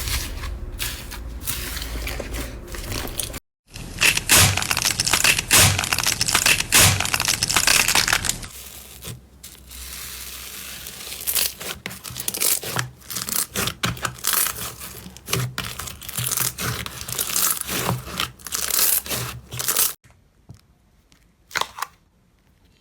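Slime being squeezed, stretched and pulled apart by hand: dense crackling, popping and tearing. The texture changes abruptly a few times as one clip cuts to the next, and it is much quieter for the last few seconds.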